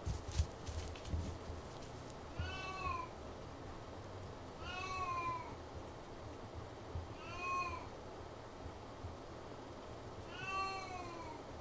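Domestic cat meowing four times at intervals of a couple of seconds, each call rising then falling in pitch: a cat begging while it waits for breakfast. A few sharp taps come in the first second or so.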